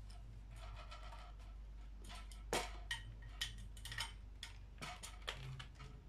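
Irregular plastic clicks and knocks from handling a ring light and its tripod light stand as the ring is taken off and refitted on the mount, the sharpest knock about two and a half seconds in, over a steady low hum.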